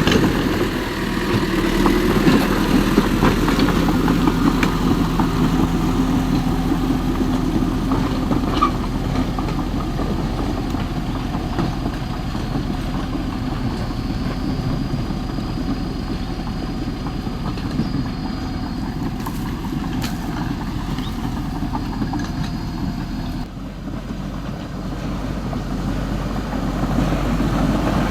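Remote-control model excavator and bulldozer running steadily while working soil, a continuous motor and mechanism hum that dips briefly near the end.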